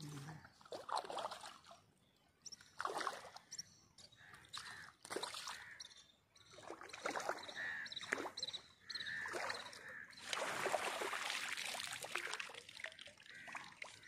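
Water splashing and sloshing in irregular bursts as a hooked carp is drawn into a landing net at the water's edge, with a longer, louder stretch of continuous splashing about ten seconds in.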